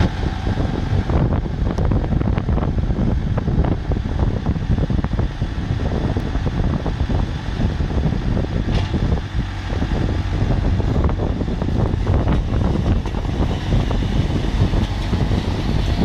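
Tractor and Asa-lift mini combi carrot harvester running in the field: a steady low engine drone mixed with the harvester's many small knocks and rattles.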